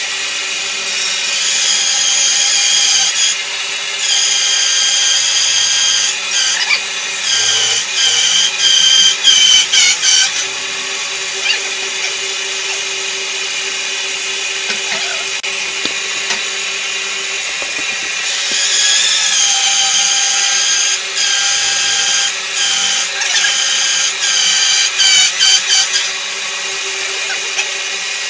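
Large floor-standing band saw running steadily, its blade cutting through wooden boards twice, each time for several seconds: a high whine that breaks up as the wood is fed, between stretches of the saw's steady running hum.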